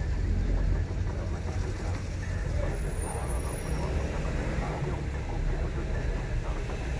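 Car driving along a road: steady low engine and road rumble.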